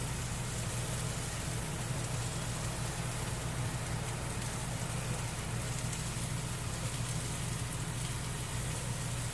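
Onions, red bell peppers, jalapeños and tomatoes sizzling steadily in butter in a frying pan, over a steady low hum.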